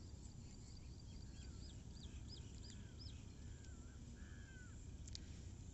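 Faint birds calling in the background: a run of quick high chirps, then several short rising-and-falling calls, over a low steady hum of room noise.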